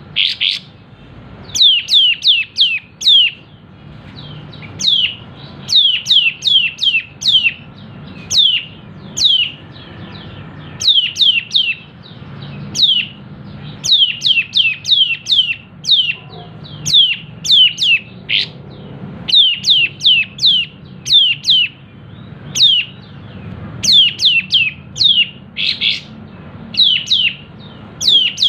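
Kapas tembak songbird singing loudly in rapid runs of short, sharply falling notes, several in quick succession and then a brief pause. This is the bird's 'ngepik nembak' shooting song, given in full voice.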